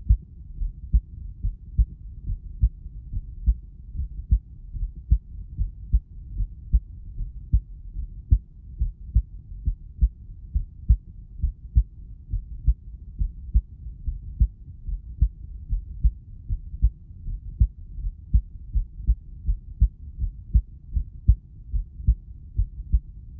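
Recorded heartbeat: low, dull thumps in close pairs (lub-dub) repeating in a steady, even rhythm.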